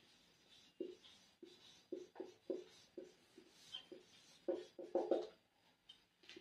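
A whiteboard marker writing on a whiteboard: a string of short, irregular strokes, loudest in a quick cluster about five seconds in.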